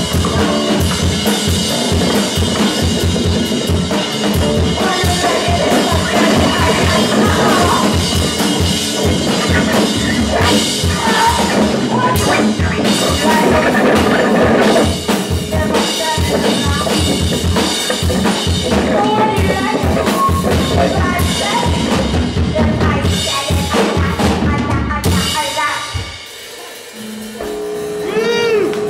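A live rock band playing loud and dense, driven by fast drumming on a drum kit. The playing stops about 26 seconds in, leaving a few steady held tones.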